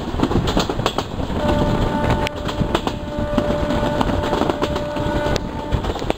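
Benapole Express train running at speed with a loud rumble and sharp clicks from the track. Its locomotive horn sounds a steady multi-note chord from about a second and a half in, lasting about four seconds.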